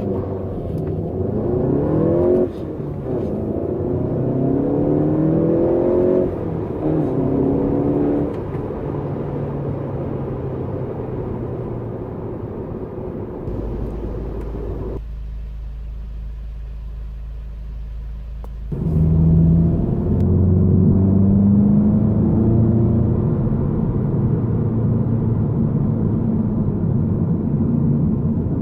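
Volkswagen Golf GTI's turbocharged 2.0-litre four-cylinder engine accelerating hard through the gears: the engine note rises and drops back at each of three quick upshifts, then settles into a steady drone at cruising speed. The sound goes dull and muffled for a few seconds midway.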